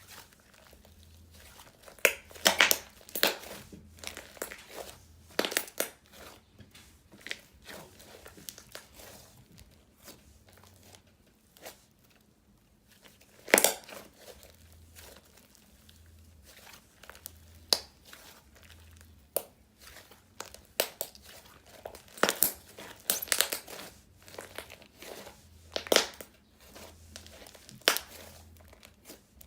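Slime being squeezed, stretched and pressed by hand, giving irregular crackling clicks and pops, with louder pops every few seconds.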